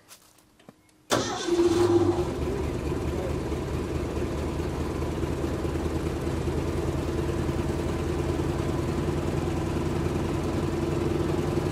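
Grimmer Schmidt 175 tow-behind air compressor's engine starting: a few faint clicks, then it catches suddenly about a second in, runs louder for about a second and settles into steady running.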